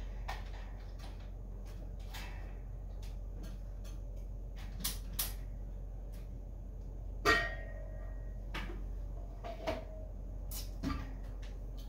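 Household handling sounds: scattered short knocks and clicks, with one louder clink that rings briefly about seven seconds in, over a steady low hum.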